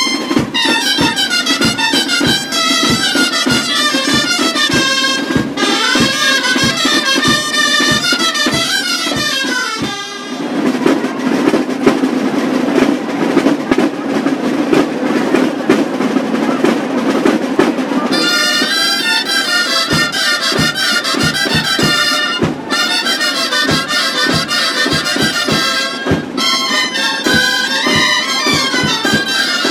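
Navarrese gaitas (reedy double-reed shawms) playing a lively folk melody over steady snare-drum beats. For several seconds in the middle the melody drops out, leaving a dense din with the drumming, before the gaitas come back in.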